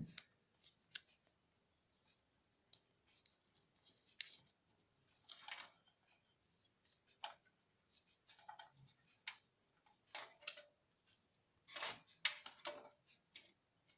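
Faint scattered clicks and a few short rustles of adhesive tape being handled and pressed onto an amplifier board as insulation.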